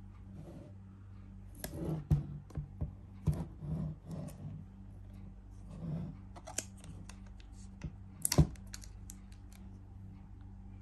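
Hands handling a shrink-wrapped cardboard iPad Pro box: scattered light taps, scrapes and clicks of cardboard and plastic wrap, with one sharp click about eight seconds in.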